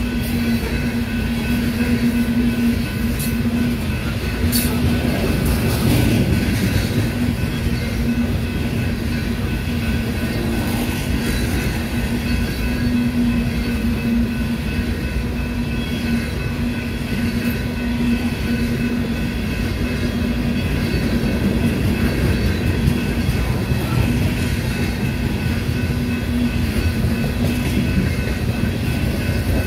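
A coal train of loaded and empty freight cars rolling steadily past: a continuous rumble of steel wheels on rail with a constant low hum, holding level the whole time.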